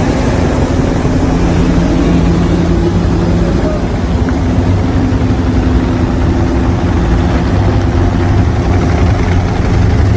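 Heavy vehicle engines of a passing military convoy of buses and trucks, a loud steady low rumble with a hum that shifts in pitch.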